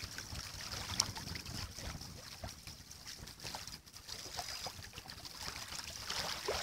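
Wind buffeting the microphone over small waves lapping at a stony shore, with one sharp click about a second in.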